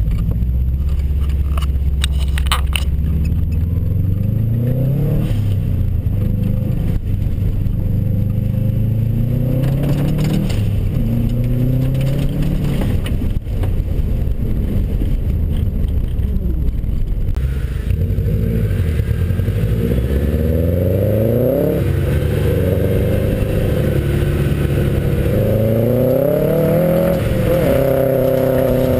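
2004 Subaru WRX STI's turbocharged 2.5-litre flat-four revving hard and falling back again and again as the car is driven on loose dirt, its pitch climbing through each gear and dropping at the shifts. There are a few sharp clicks about two seconds in. In the second half the engine twice rises steeply to high revs.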